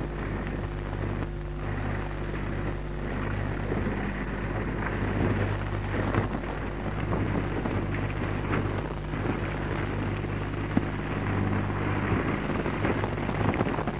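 Crackling, rumbling noise with a steady low hum throughout, the sound of a badly deteriorated Super 8 magnetic soundtrack.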